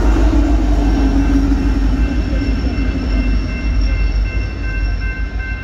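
Diesel locomotives at the tail of a Union Pacific freight train rumble past at speed, the rumble fading as the train clears the crossing. Under it, the grade-crossing signal bell rings steadily and stands out more near the end.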